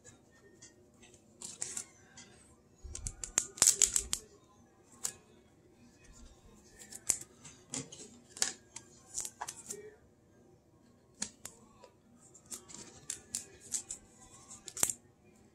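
Trading cards being handled and slid into plastic sleeves and rigid top loaders: light plastic rustling and small clicks, irregular, with a busier spell about three to four seconds in.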